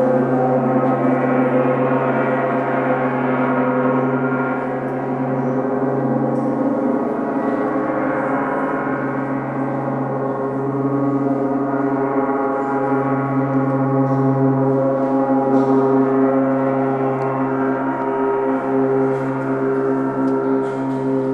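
Gongs played continuously, their ringing overtones blending into one dense, sustained wash over a deep hum that swells and ebbs slowly.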